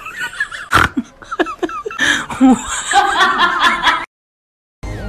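People chuckling and laughing in short bursts, with a sharp click about a second in; the sound cuts off suddenly near the end.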